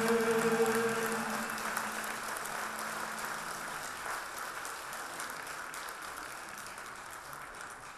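The final held chord of a mixed choir and ensemble dies away over the first second or so, and the audience applauds, the clapping slowly fading.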